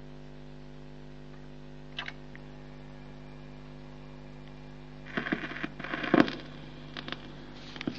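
Record player's steady mains hum with a single click about two seconds in; about five seconds in, scraping clicks and thumps as the stylus is lowered onto the spinning 78 rpm disc, the loudest thump about six seconds in, then faint clicks from the groove before the music starts.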